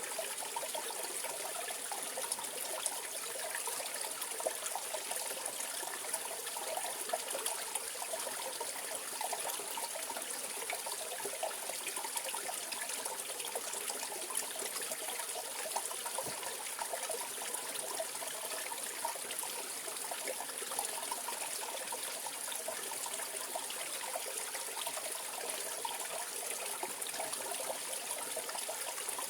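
Mountain valley stream flowing steadily: an even, unbroken rush of running water.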